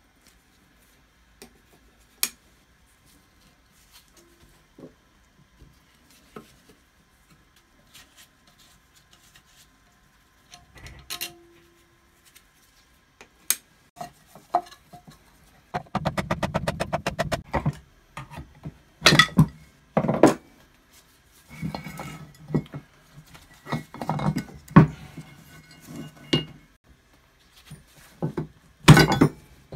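Metal parts of an early-1960s Black & Decker bench grinder motor clinking and knocking against each other and the wooden workbench as the motor is dismantled. There is a rapid run of clicks lasting nearly two seconds about halfway through, followed by several louder knocks.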